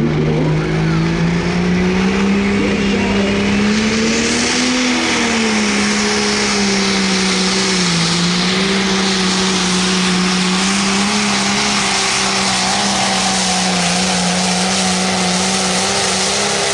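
Turbocharged diesel Limited Pro Stock pulling tractor running at full throttle as it makes a pull. The engine pitch climbs over the first few seconds, then holds high and steady with small dips.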